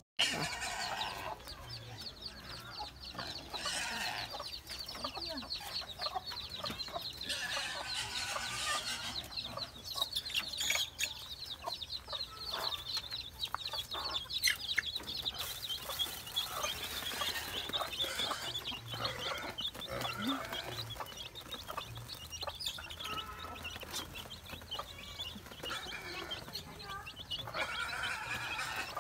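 Chickens clucking, with a dense high-pitched twitter of quick short calls through the first half.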